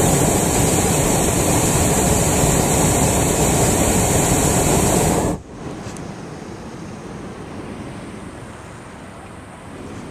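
Hot air balloon's propane burner firing overhead, a loud steady roar of about five seconds that starts and cuts off abruptly. After it, a quieter steady noise.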